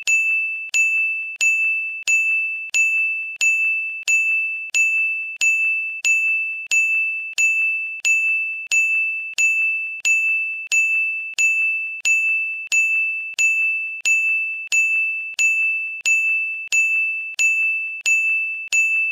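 A single high bell-like chime note struck over and over at a steady pace, about one and a half times a second, each strike fading quickly.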